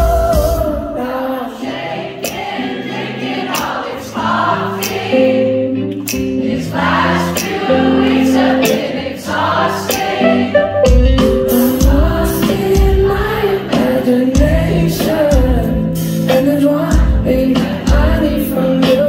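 Live pop song played loud, heard from the crowd: singing over electric guitar and sustained chords. A low drum beat comes in a little over halfway through.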